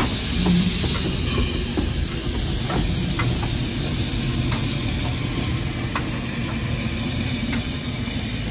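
Small steam tank engine hissing steadily as steam escapes around its cylinders, with a few light clicks scattered through.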